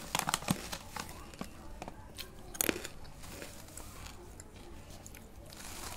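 Plastic bag holding banslochan crystals being handled, with irregular crinkling and small crackling clicks. One sharper crunch comes about two and a half seconds in.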